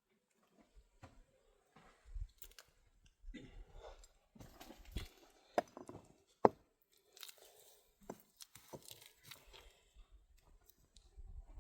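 Irregular crunches and clicks over a faint low rumble, with the sharpest click about six and a half seconds in.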